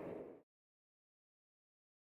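The last of a passing train's noise dies away within the first half second and cuts off, followed by complete silence.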